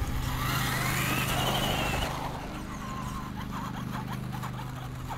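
Electric motor of a Traxxas Stampede RC truck whining as it drives, the pitch rising as it speeds up and then falling away about two seconds in, over a steady low hum.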